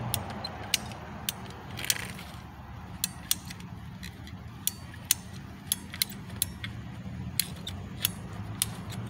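Ratcheting PVC pipe cutter working through a white PVC sprinkler pipe: a run of sharp, separate clicks, about two a second, as the handle is squeezed and the blade ratchets in.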